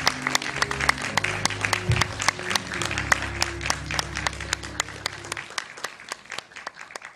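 Audience applauding with many scattered claps over sustained low music notes; the music stops about five and a half seconds in and the applause fades out near the end.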